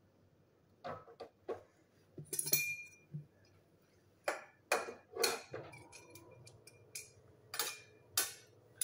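A steel kadhai (wok-like pan) being handled on a gas stove: scattered metal knocks and clinks, one clink ringing briefly about two and a half seconds in, with more sharp knocks later.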